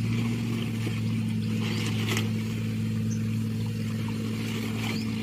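A small engine drones steadily at an even pitch, with a couple of short wet rustles about two seconds in as a fish-trap net is hauled into a wooden boat.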